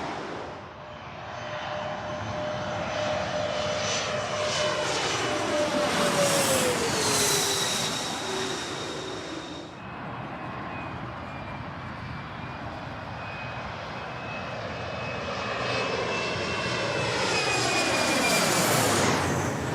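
Two large jet airplanes flying past one after the other. The first swells to a peak about seven seconds in, its engine tones dropping in pitch as it passes, then cuts off abruptly about ten seconds in. The second builds steadily and peaks near the end.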